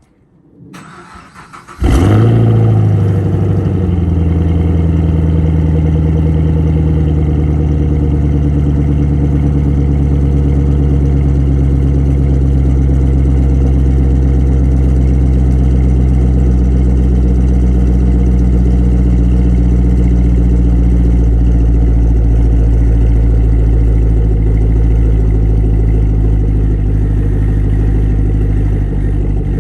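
V8 engine on its stock camshaft starting about two seconds in. It catches with a quick flare of revs that falls away within a couple of seconds, then idles steadily.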